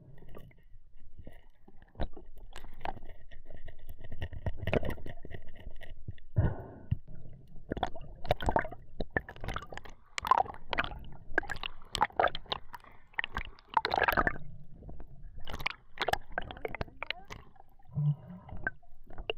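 Water sloshing and gurgling around a diver's action camera, in and just below the surface. Many irregular sharp knocks and crackles run through it while the diver handles the speared fish and spear.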